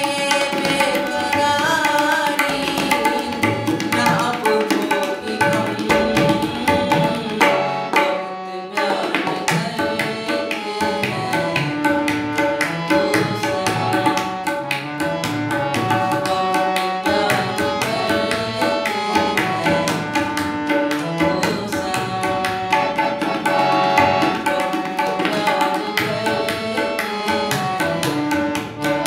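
Tabla drums and a hand-pumped harmonium playing a song together, the harmonium holding the melody over quick tabla strokes, with a man's singing voice at times. The music drops out briefly about eight seconds in.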